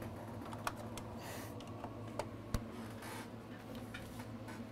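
Scattered light clicks and taps, with a couple of short rustling scrapes, as small items are handled on an electronics workbench, over a steady low hum.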